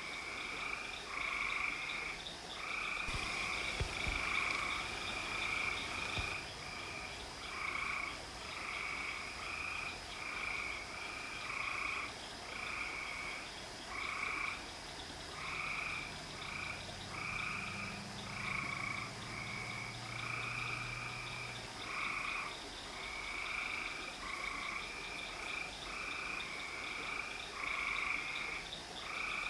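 Frogs calling in a steady chorus of short, repeated croaking calls, about one to two a second, over a steady high whine. A low drone joins for a few seconds in the middle.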